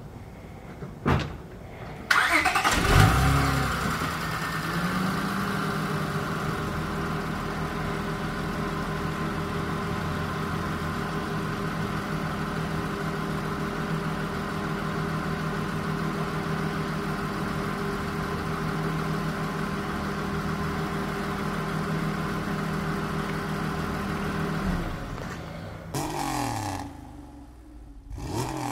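2003 Acura CL Type S's 3.2-litre V6 cold-starting: brief cranking, then it catches with a rev flare that settles within a couple of seconds into a steady idle. The engine sound stops near the end.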